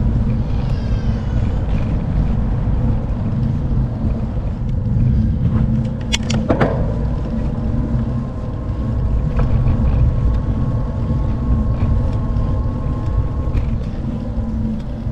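Steady low rumble of wind on the microphone and tyre noise from a moving e-bike, with a faint steady hum and a single click about six seconds in.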